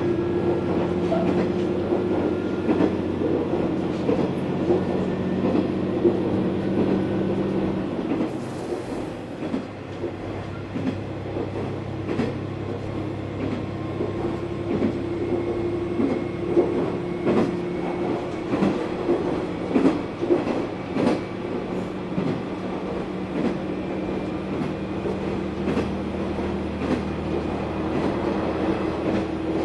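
Onboard running sound of a KiHa 120 diesel railcar under way: a steady diesel engine drone with wheels clicking over rail joints, heard from inside the car. About eight seconds in, the engine note drops and the sound gets a little quieter, and several quick clusters of clicks come in the second half.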